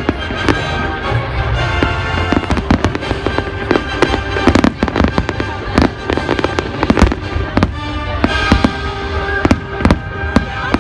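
Fireworks display: many sharp bangs and cracks of exploding shells, irregular and often several a second, over music with sustained notes.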